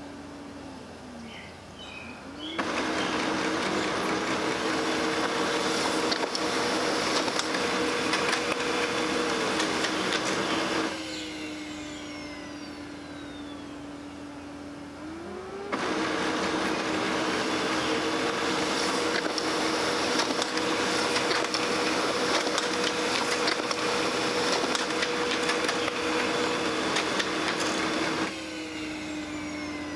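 Brother laser printer running through print cycles. About two seconds in its motors spin up with a rising whine and run with a steady mechanical rush for about eight seconds, then wind down to a lower steady hum. A few seconds later they start again and run for about twelve seconds before winding down near the end.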